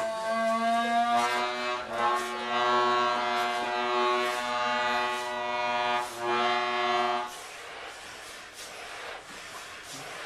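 Piano accordion holding loud sustained reed chords that shift a couple of times in the first two seconds, break off briefly near six seconds, then stop after about seven seconds. Sharp tap-shoe clicks on a wooden board sound through it and carry on alone, quieter, for the last few seconds.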